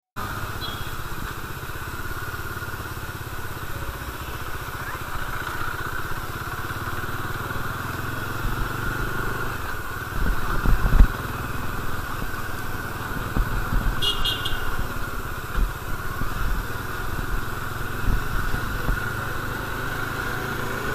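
Bajaj Dominar's single-cylinder engine running steadily at low road speed, with a loud low thump about halfway through and a brief burst of high beeping about two-thirds of the way in.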